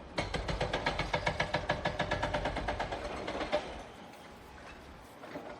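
Heavy demolition machinery working: a fast, even mechanical hammering of about eight knocks a second over engine noise, stopping about three and a half seconds in, after which only a quieter machine sound remains.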